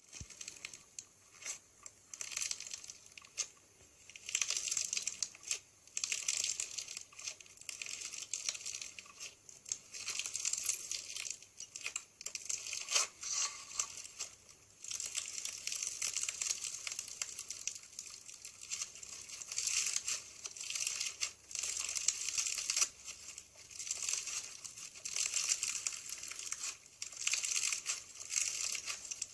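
Crunchy slime being squeezed and pressed by hand, crackling and popping in repeated squeezes every second or two.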